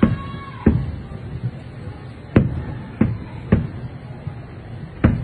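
Aerial firework shells bursting: about six sharp booms at irregular intervals, each trailing off in a short low rumble.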